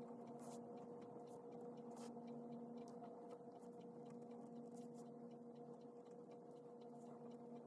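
Very faint pen strokes scratching on paper during handwriting, heard as soft irregular ticks over a steady low electrical hum.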